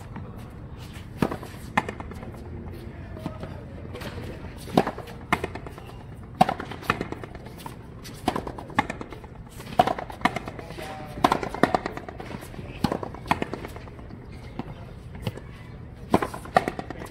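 Frontenis rally: a ball struck with stringed rackets and rebounding off the concrete front wall and floor, a string of sharp cracks at irregular intervals.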